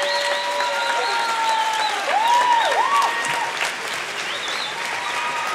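Audience applauding, with several high-pitched held cries and whoops that rise and fall over the clapping, loudest about two to three seconds in.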